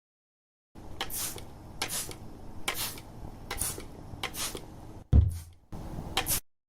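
Hand-pump spray bottle spritzing mist in about seven short hissing squirts, roughly one a second, with a loud low thump about five seconds in.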